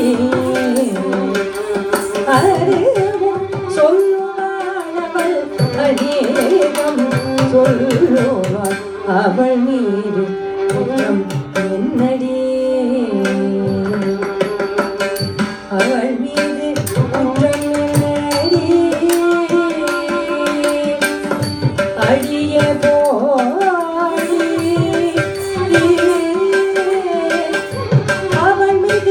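Live Carnatic dance music: a singer and a violin carry a gliding melody over quick, steady mridangam drum strokes.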